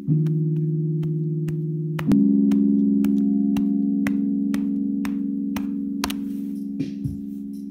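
Electronic music played on hardware synthesizer gear: sustained low synth chords that change to a new chord about two seconds in and slowly fade, over a steady tick about twice a second.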